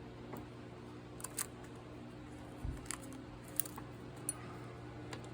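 Light metal clicks and taps from handling lock picks and a tensioner at a lock, about half a dozen scattered through, with one dull thump about halfway. A steady low hum runs underneath.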